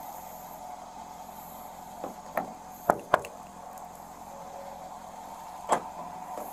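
Sharp clicks and clunks from a car's door mechanism as the door is tried while the locks are being worked: a cluster of four about two to three seconds in and another near the end, over a steady hum.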